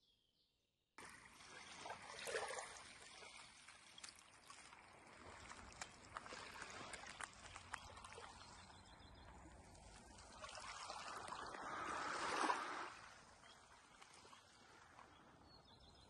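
Faint water washing and trickling at the shoreline with small crackles, beginning about a second in and swelling into two louder surges, about two seconds in and again around twelve seconds.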